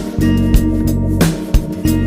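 Background music: steady plucked guitar over a regular bass and drum beat.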